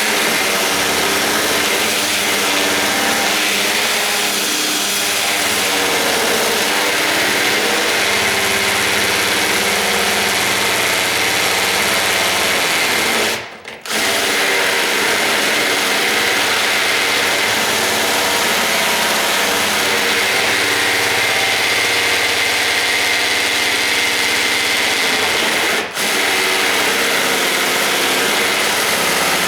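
Power drill running steadily under load, its bit grinding at the metal strike plate opening to enlarge it for the door latch. It cuts out briefly about halfway through and dips again a few seconds before the end.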